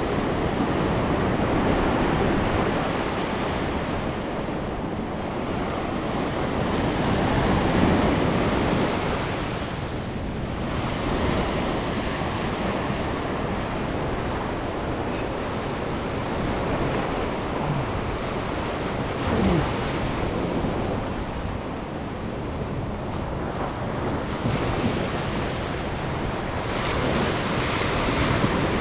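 Small ocean waves breaking on a sandy beach and washing up over the sand as foamy swash, the sound swelling and ebbing as each wave comes in and drains back.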